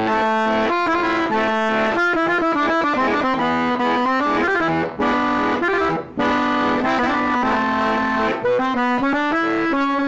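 Button accordion playing a lively conjunto melody in quick runs of notes, with two brief breaks about five and six seconds in.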